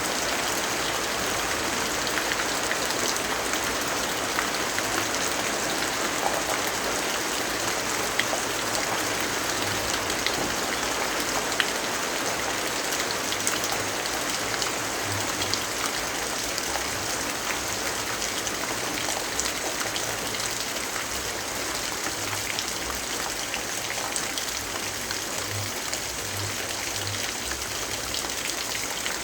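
Steady rainfall: a dense, even hiss of rain with scattered faint ticks of single drops.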